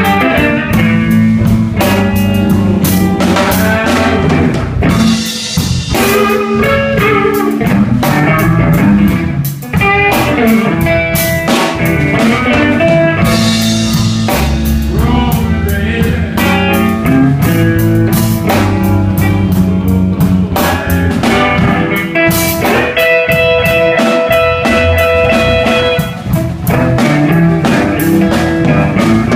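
Live blues band playing: guitar over a drum kit, a steady groove with no words.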